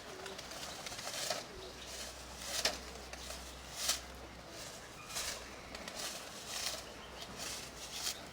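Young Nikolaev pigeons flapping their wings in short bursts about every second or so, with faint cooing.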